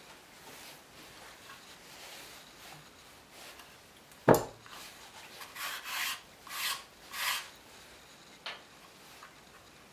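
A machinist vise on a plywood base is handled on a wooden workbench. It gives one heavy knock about four seconds in as it comes down on the benchtop, then about four short scraping rubs as the base is shifted against the bench, and a light click near the end.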